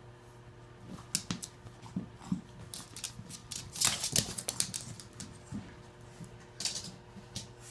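Dogs' claws clicking and scrabbling on a hardwood floor and rug as two Shar-Pei puppies and a pug scuffle and chase, in irregular bursts of quick clicks. The bursts are busiest about four seconds in, with another cluster near the end.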